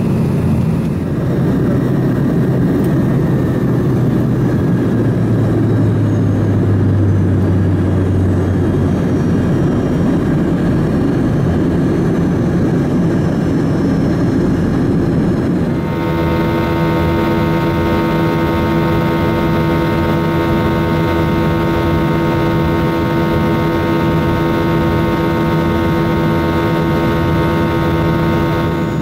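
Cabin noise inside a Yakovlev Yak-42D in flight: a steady rush of air and engine noise from its three rear-mounted Lotarev D-36 turbofans. About halfway through it changes to a steady drone carrying a set of clear, even engine tones.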